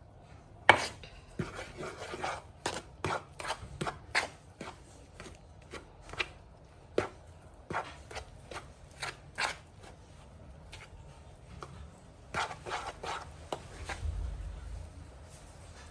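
Irregular sharp clicks and knocks of kitchen utensils against a bowl, with soft rubbing, while chin chin dough ingredients are mixed. The knocks come in three bunches with pauses between them, and a dull low thump comes near the end.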